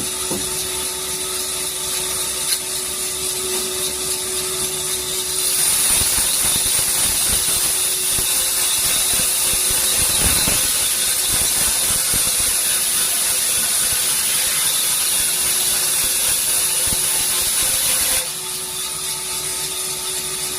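Industrial band saw running with a steady hum. About five seconds in the blade goes into a teak log and a loud, steady hiss of sawing takes over. It ends a couple of seconds before the close, when the saw runs free again.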